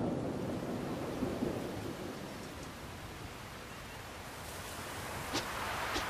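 Stormy sea-and-weather ambience: a steady wash of wind, rain and surf noise. A low rumble fades out over the first second, and a couple of sharp ticks come near the end.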